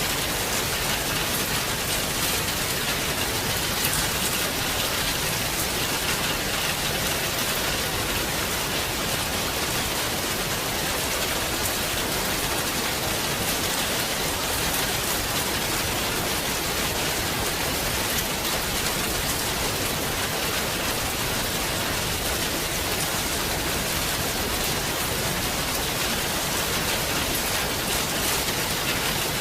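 Heavy rain falling in a steady downpour, with separate drops striking close by here and there.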